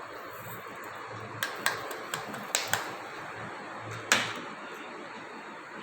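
A spoon tapping and clinking against a container as sugar is spooned out: about six light clicks spread over a few seconds, the one near the end the loudest.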